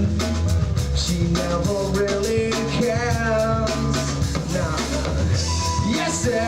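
Live rock band playing: drum kit, bass and electric guitars, with a lead line that bends and glides in pitch over a steady low end.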